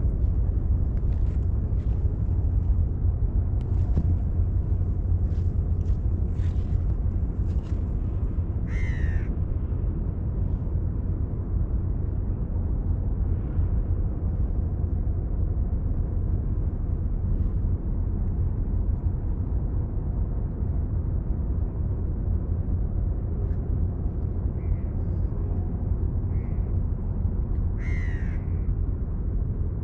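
A crow cawing, with short calls about nine seconds in and again near the end, over a steady low rumble.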